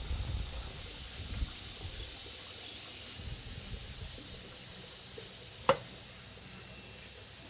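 Metal engine parts of a Cub 72 motorcycle being handled as the finned cylinder is worked off its studs: low rubbing and knocking in the first second or so, then one sharp metallic click a little over five and a half seconds in.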